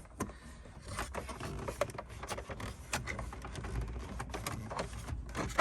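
Plastic dashboard trim and a wire being handled and worked into place: irregular small clicks, taps and rattles of plastic.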